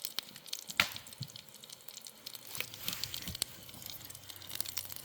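Sausages frying gently in a pan on a low flame: sparse soft crackles, with a few sharper pops spread through.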